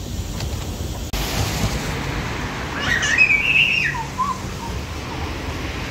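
A toddler's high-pitched, wavering squeal lasting about a second, about three seconds in, over a steady background hum.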